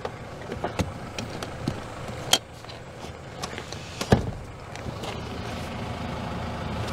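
Seat mechanisms being worked in an SUV's cargo area: several sharp clicks and a heavy thump about four seconds in. Then an electric motor runs steadily for the last two seconds or so, as a power-folding third-row seat moves. It stops abruptly.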